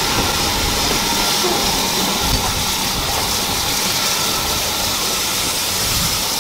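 Steam locomotive 76084, a BR Standard Class 4 2-6-0, close by, with a loud, steady hiss of escaping steam over a low rumble.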